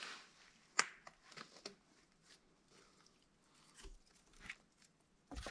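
Faint scattered cracks, scrapes and rustles of a person climbing a conifer trunk: boots and hands on bark and small branches, with one sharp crack just under a second in.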